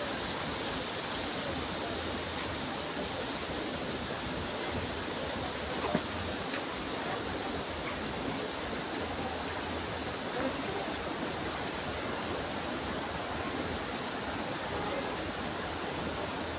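Steady rush of water from a waterfall and rocky stream, with one brief knock about six seconds in.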